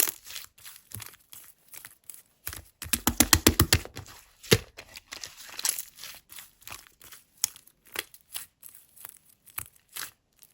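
Light-yellow mixed slime being pressed and squeezed by hand, giving sticky clicks and pops. About three seconds in there is a quick run of rapid clicks.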